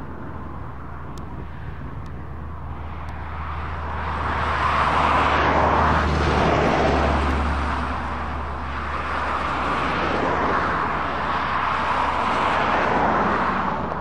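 Tractor engines working under load, with the rushing mechanical noise of a trailed Grimme potato harvester being pulled by a Fendt 716 Vario. The low engine hum is steady while the machinery noise swells twice as the rig passes.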